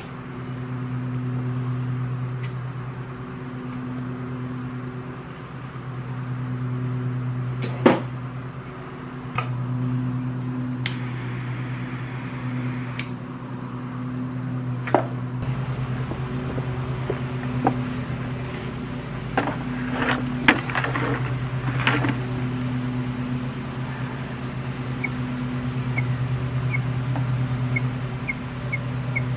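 Clicks and knocks of plastic covers and screws being refitted on a backpack blower, with a cordless screwdriver whirring for about two seconds around a third of the way in, all over a steady low hum.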